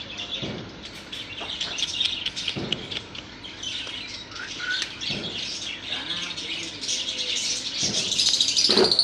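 Small birds chirping busily in quick, high twitters, with a few soft thuds; the chirping swells to its loudest near the end.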